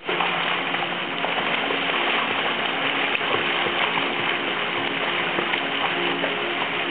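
Steady rushing and splashing of pool water, with a swimmer doing front crawl, over a faint low hum that comes and goes.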